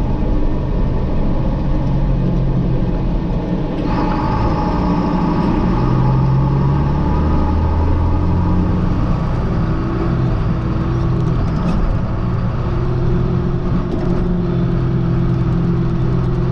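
John Deere 4760 tractor running on the road close to its top speed of about 20 mph, with its engine drone and plenty of road noise. A higher steady whine joins about four seconds in.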